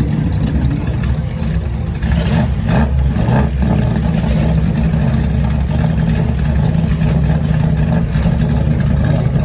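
Historic racing car engines running, a deep, steady low rumble.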